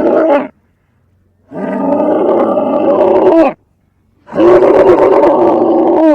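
Camel vocalization sound effect played in reverse: loud, pitched calls lasting about two seconds each, with about a second of silence between them. A call ends just after the start, a full one follows about a second and a half in, and another begins past the midpoint.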